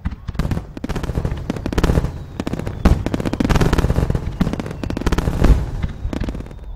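Fireworks barrage: many shells bursting and crackling in rapid, dense succession.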